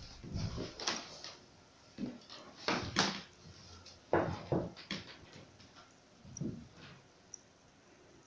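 A few irregular knocks, thuds and scuffs of a person getting up from a wooden chair and moving about on a hard floor, the loudest about three seconds in and again about four seconds in.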